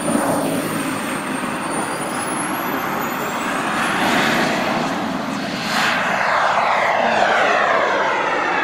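Model turbine engine of a Sebart Avanti S RC jet running at high power. Its high whine rises in pitch about three seconds in as it spools up. Its jet noise swells and sweeps as the model passes and climbs away.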